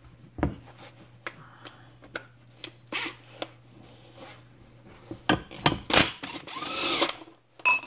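Electric impact gun running in short bursts for about two seconds, from roughly five seconds in, to loosen the flywheel nut on a Briggs & Stratton small engine. It is preceded by a few light clicks.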